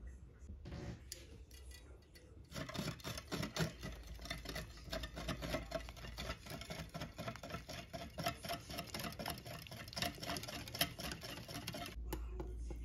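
Metal wire whisk beating eggs, milk and cocoa mix in a bowl: a fast, busy run of ticks and scrapes against the bowl that starts about two and a half seconds in and stops shortly before the end.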